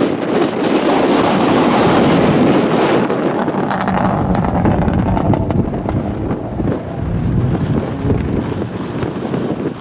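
Subaru Impreza STi rally car's turbocharged flat-four passing close at speed, then its engine sounding duller and lower as it drives off. Wind buffets the microphone.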